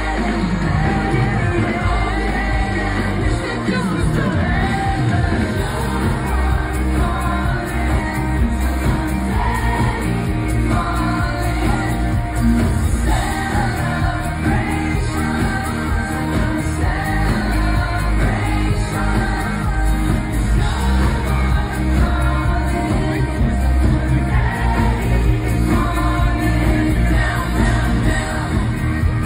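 Live pop band playing and singing through an arena sound system, heard from within the crowd.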